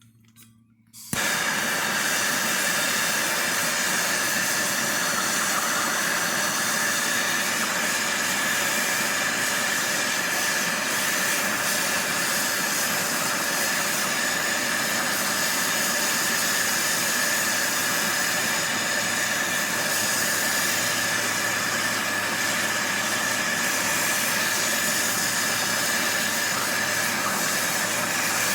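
Handheld gas torch burning with a steady hiss, coming on suddenly about a second in and shutting off at the end. It is heating the copper sealing washer on a Bosch diesel injector tip to free the stuck washer.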